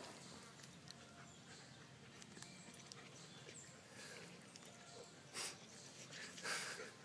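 A German Shepherd puppy and a wolf hybrid play-fighting, mostly faint, with two short, breathy dog noises about five and six and a half seconds in.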